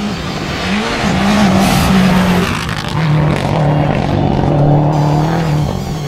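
Rally car passing at speed on a gravel stage: the engine note rises, then drops to a lower steady pitch about halfway through, under a loud rush of tyre and gravel noise that swells in the middle and fades near the end.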